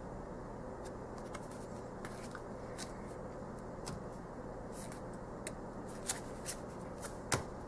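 Tarot cards being handled on a cloth-covered table: light clicks and slides of card stock as cards are laid on piles and picked up, scattered and growing more frequent, with the sharpest tap near the end. A steady low hum sits under it.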